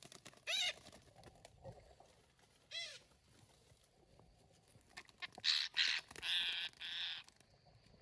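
Parakeets calling: two short, wavering trilled calls in the first three seconds, then a run of loud, harsh screeches about five to seven seconds in.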